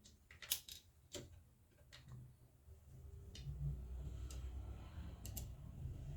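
Faint scattered clicks of a screwdriver and plastic parts as a short screw is set and driven into a sewing machine's plastic cover, with a low rubbing of handling from about halfway through.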